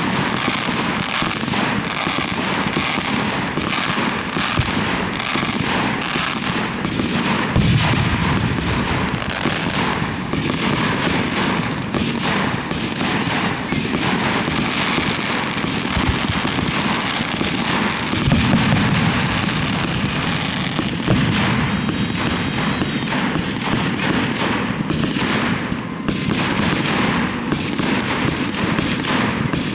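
A fireworks display going off without pause: dense crackling and popping over a steady rumble of bangs, with two heavier booms, the first about a quarter of the way in and the second past the middle. A brief high whistling tone sounds about three-quarters of the way through.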